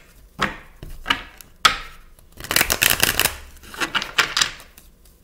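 A tarot deck being shuffled by hand: a string of short papery card bursts, thickest about two and a half to three seconds in.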